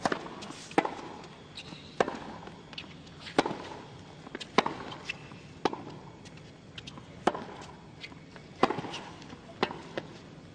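Tennis rally: a ball struck back and forth with rackets, sharp hits about every second and a quarter, with fainter ticks of the ball bouncing on the hard court between them.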